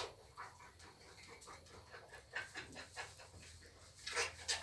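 A lamb sucking milk from a feeding bottle's teat: a run of quick, soft sucks and slurps, several a second, louder near the end.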